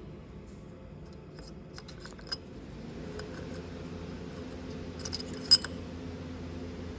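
Small metal parts clinking and ticking as they are handled, with a sharp metallic click near the end. A steady motor hum comes in about three seconds in and grows.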